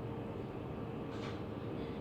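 Končar TMK 2200 low-floor tram running along the track, heard from inside: a steady low rumble with a constant hum, and a short hiss about a second in.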